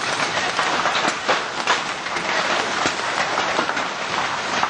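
Giant hailstones pelting down in a heavy storm: a dense, loud clatter of many sharp knocks as the stones strike the ground and hard surfaces, over the steady hiss of heavy rain.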